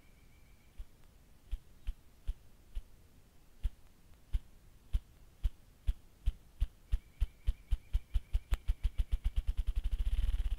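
Male ruffed grouse drumming: deep wingbeat thumps, spaced about half a second to a second apart at first, speeding up into a fast roll near the end.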